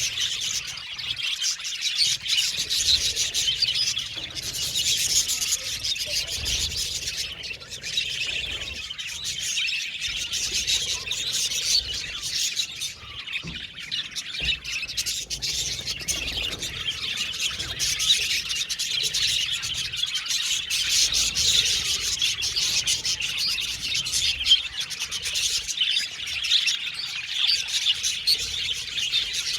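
A flock of budgerigars chattering and chirping together, many birds at once in a dense, continuous warble.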